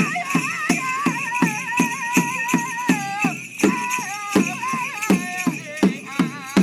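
Native American hand drum struck in a steady beat, about three strokes a second, under a high, wavering melody line.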